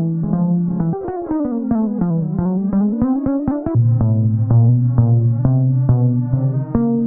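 Playful comedy background music on synthesizer and keyboard: quick short notes that run down and back up in pitch, over a held low bass note from about four seconds in.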